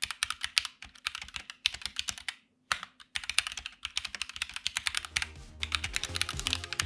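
Typing on a DeepCool KG722 65% mechanical keyboard with stock Gateron switches and foam between plate and PCB: a quick run of keystroke clicks, pausing briefly about two and a half seconds in. Background music fades in about five seconds in.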